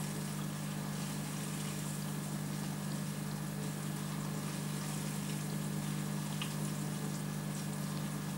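Aquarium filter pump running with a steady low hum, over a faint even hiss of moving water.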